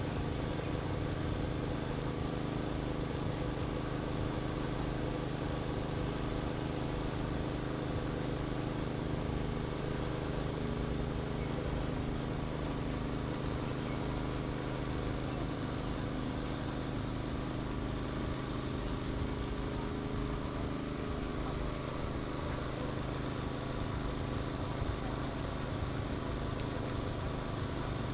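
An engine running steadily, a constant hum that does not change speed.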